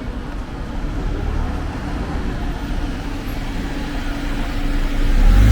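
Street traffic: a motor vehicle's engine rumbling low and growing louder toward the end as it draws near.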